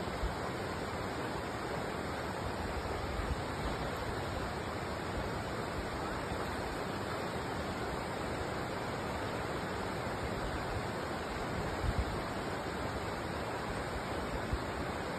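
Steady rushing noise of moving water, with a few brief low thumps of wind on the microphone.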